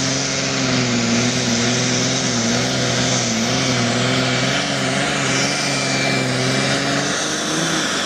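Modified diesel pulling tractor's engine running hard under full load as it drags a weight-transfer sled, holding a steady pitch that wavers slightly.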